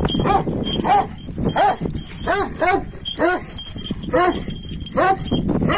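Dogs barking repeatedly in play while wrestling, short barks coming about two a second.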